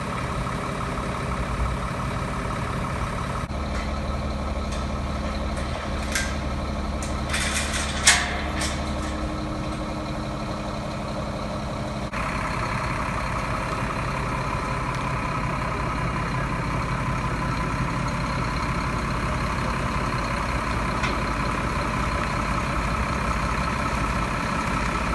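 Heavy truck engines idling steadily, their note changing twice. A few short sharp noises come about six to nine seconds in, the loudest near eight seconds.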